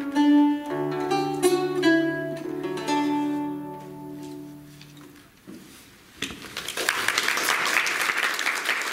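Solo lute playing the closing bars of a siciliana, the last chord ringing and dying away. About six seconds in, an audience breaks into applause.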